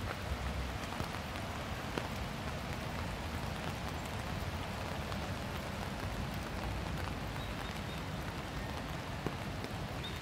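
Rain falling steadily: an even hiss with scattered small ticks of drops, over a low rumble.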